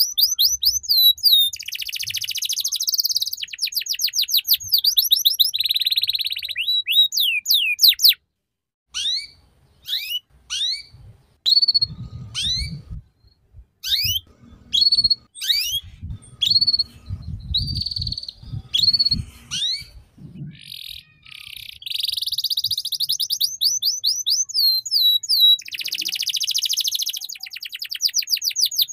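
Domestic canary singing: long runs of very fast repeated notes in the rolling 'ngeriwik' trill style. About eight seconds in, the song breaks into a stretch of separate, sharply rising chirps, then goes back to fast trills in the last several seconds.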